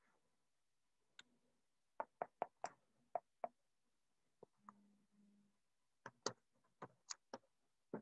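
Laptop keyboard keys clicking as a short phrase is typed: about fifteen separate key clicks in short, irregular runs.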